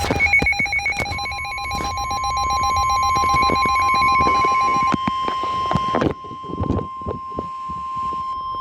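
Emergency alert tones from a radio: a pulsing, ringing alert tone, then, starting about a second in, a steady single tone near 1 kHz typical of the 1050 Hz weather radio warning alarm, over crackling static.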